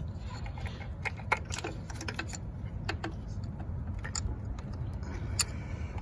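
Scattered light clicks and rubbing as a plastic coil-on-plug ignition coil with its rubber boot is pushed by hand down into a spark plug well, over a steady low rumble.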